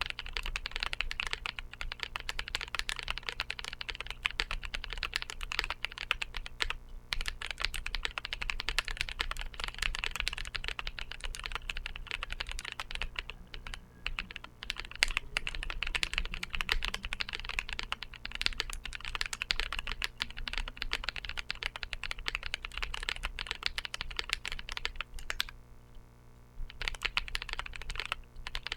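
Continuous fast typing on a custom mechanical keyboard fitted with Drop Holy Panda tactile switches on 62 g springs and GMK Godspeed keycaps: a dense run of keystroke clacks with short pauses about halfway through and near the end.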